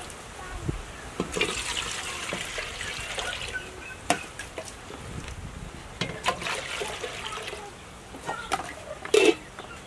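Water scooped with a plastic dipper from a plastic bucket and poured into an aluminium cooking pot, splashing and trickling. A few sharp knocks of the dipper and pot come in between, the loudest near the end.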